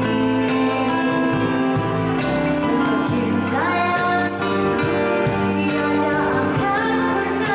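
Live band music: a woman singing into a microphone, holding long notes, over acoustic guitar, electric bass, keyboard and cajon.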